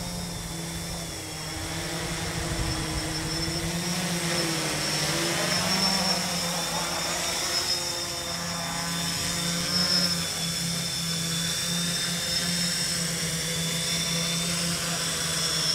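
XAircraft X650 quadcopter's four brushless electric motors and propellers whirring in flight: a steady buzzing hum whose pitch wavers slightly as the rotors change speed.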